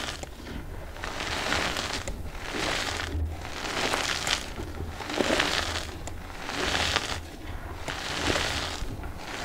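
Hands squeezing and crumbling reformed gym chalk into loose powder: a soft, crunchy, powdery crackle that swells and fades with each squeeze, roughly once a second.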